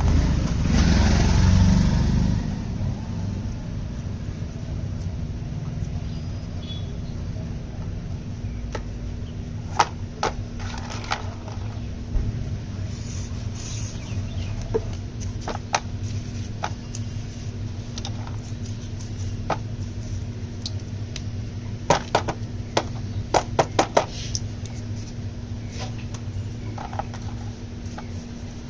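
Yamaha motorcycle engine idling steadily, louder for the first two seconds, with scattered sharp clicks and taps over it.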